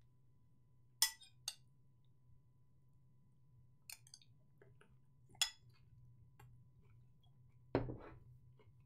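A handful of short, sharp clicks and clinks from things handled at a desk, five standing out a second or more apart, the last one near the end a duller knock. A faint steady low hum lies underneath.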